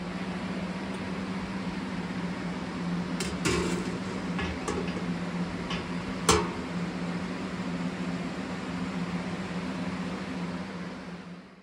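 A steady hum with an even hiss, broken by sharp metallic clinks: a cluster a little over three seconds in, fainter ones around four to five seconds, and one loud clink about six seconds in, as a wire-hung anodized aluminium part and its hanging rod knock against a stainless steel stock pot.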